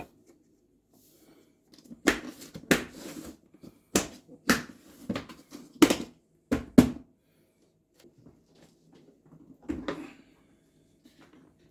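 A run of about eight sharp knocks and clatters over five seconds, then a couple more a little before the end.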